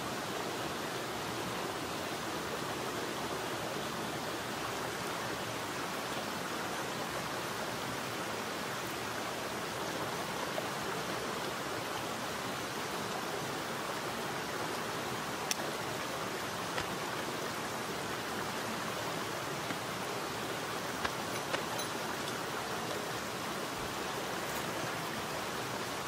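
Mountain stream running steadily over rocks, an even rushing water noise. A few faint clicks from camping gear being handled are heard through the middle.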